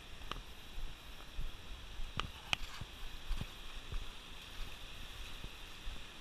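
Small waves washing onto a sandy beach: a steady surf hiss, with wind buffeting the microphone and a couple of brief sharp clicks a little over two seconds in.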